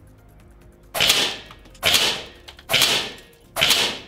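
Seneca Aspen .25-calibre PCP air rifle fired four times in quick succession, about a second apart. Each shot is a sharp crack that fades over about half a second.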